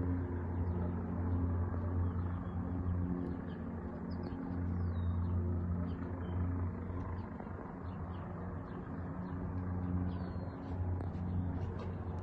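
Helicopter hovering, a steady low droning hum that swells and eases slightly, with small birds chirping now and then.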